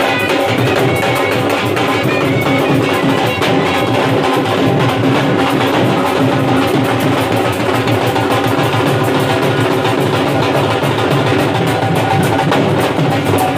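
Several Punjabi dhols, double-headed barrel drums, beaten together with sticks in a fast, continuous rhythm.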